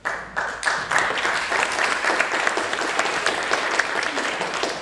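Audience applauding, starting abruptly and tapering off near the end.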